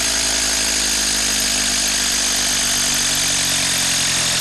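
Hilti SID 4-22 brushless cordless impact driver running steadily in reverse, hammering a long TimberLOK screw back out of a block of wood.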